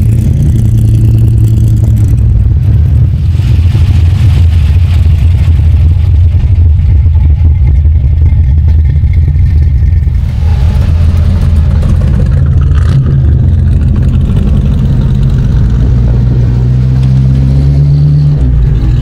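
Engines of classic American V8 cars running loudly as they drive in, with a shift in engine note about halfway through.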